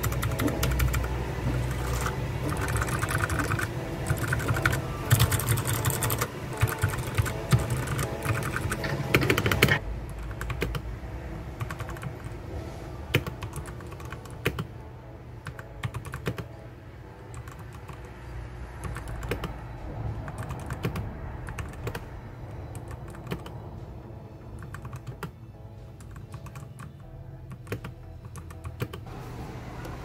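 Typing on a Royal Kludge RK100 mechanical keyboard: rapid clacking keystrokes, dense and loud for about the first ten seconds, then sparser and quieter.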